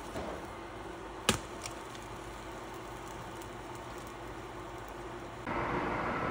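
A pancake being flipped with a spatula in a nonstick frying pan: one sharp clack about a second in, with a few lighter ticks, over a faint steady hiss.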